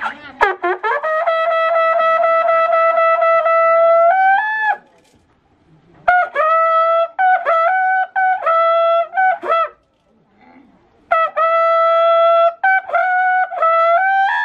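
A long brass horn blown in three loud blasts separated by short pauses. Each blast holds one steady note and steps up to a higher note at the end; the second and third are broken into a run of short notes that shift between two pitches.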